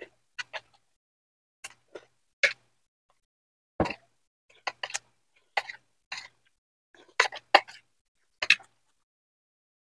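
Close-up eating noises: about fifteen short, separate mouth sounds (chewing, smacking and slurping), with quiet between them.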